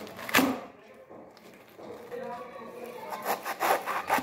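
A cleaver cutting down through a whole napa cabbage on a cutting board, splitting it for kimchi. There is one sharp cut about half a second in, then a quick run of crunching, rasping strokes through the stem and leaves near the end.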